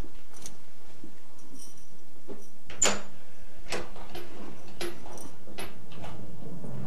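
Wooden front door being opened: a few sharp clicks and knocks from its handle and latch, mixed with footsteps, the loudest click about three seconds in.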